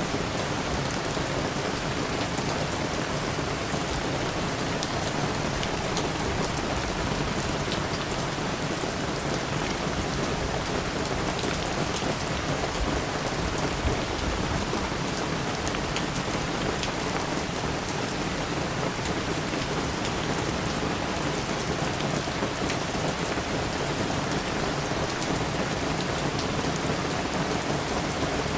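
Steady rain falling, a constant even hiss with many small drop ticks.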